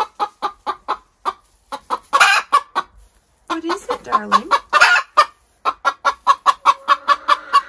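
Laying hen cackling: a fast run of short clucks, about four or five a second, broken by a louder, drawn-out squawk twice. It is the loud cackle hens give around laying; the keeper thinks she may have just laid an egg.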